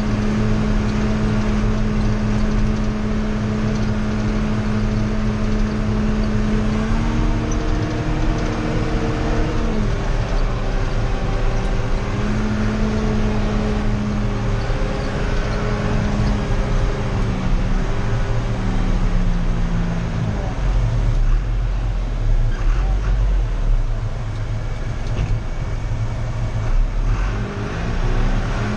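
John Deere tractor's diesel engine running under road load, heard from inside the cab as it drives along a dirt road. Its note is steady, stepping up in pitch a few seconds in and dropping back a little after the middle, with a heavier low rumble through the last stretch.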